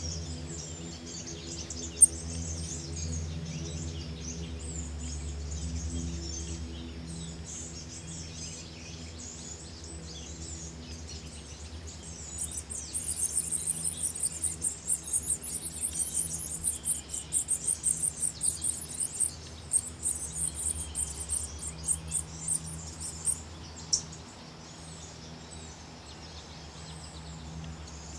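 Woodland birds chirping and calling, with a long run of rapid, high-pitched chirps through the middle that stops a few seconds before the end. A single sharp click sounds about two seconds in, and a steady low hum runs underneath.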